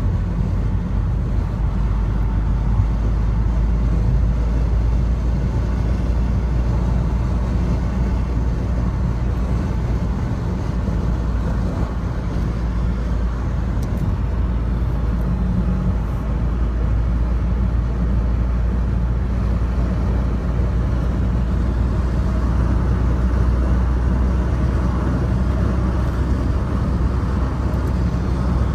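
Steady road and engine rumble inside a car cruising at motorway speed: a deep, even drone with tyre hiss above it, with no change in pace.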